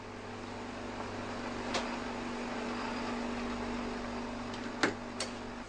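Laboratory freezer running with a steady hum and a low tone, with a few sharp clicks, the loudest a little before the end.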